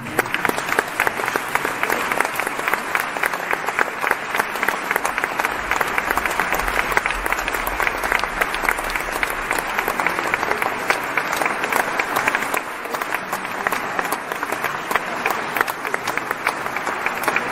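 Audience applause that breaks out all at once and keeps up steadily.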